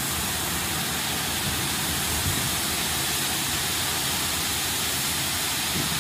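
A tipper truck's diesel engine running while gravel slides out of its raised body: a steady, even hiss over a low rumble.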